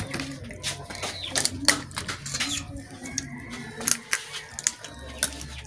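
Cooked crab shells and legs cracking and snapping as they are broken apart by hand, in a quick, irregular run of sharp clicks.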